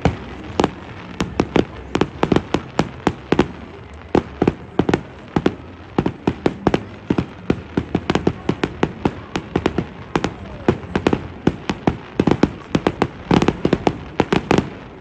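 Aerial fireworks bursting in a rapid, irregular string of sharp bangs, several a second, with a dense flurry near the end before they stop.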